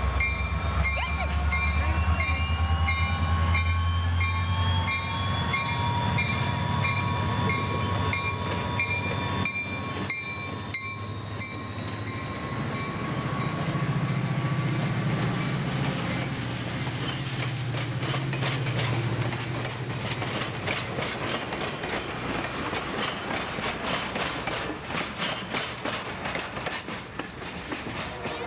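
Diesel-hauled passenger train passing. The locomotives' low engine rumble is loudest at first, then gives way to the steady clicking of car wheels over rail joints as the passenger cars roll by.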